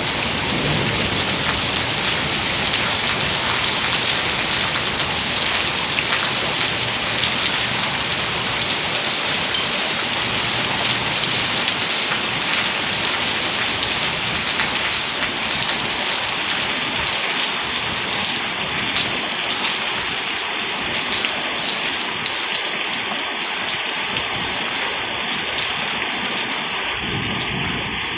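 Hailstorm: hail and heavy rain pelting down, a dense steady hiss with many sharp ticks of hailstones striking, easing slightly near the end.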